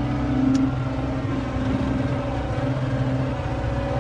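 John Deere 333E compact track loader's diesel engine running steadily, with a brief click about half a second in.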